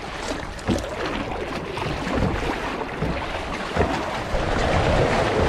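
Choppy sea water sloshing and splashing against a sea kayak's hull and the rock sides of a narrow channel, with wind buffeting the microphone; it grows louder near the end.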